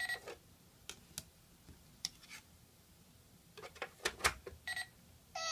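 Scattered hard plastic clicks and taps from a Tomica toy police station playset being handled, bunching into a quick run of clicks a little before the end.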